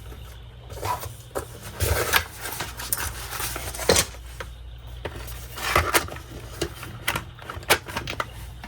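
Colored pencils and other art supplies being handled on a table: irregular clicks, taps and light clatter, loudest about two, four and six seconds in, over a low steady hum.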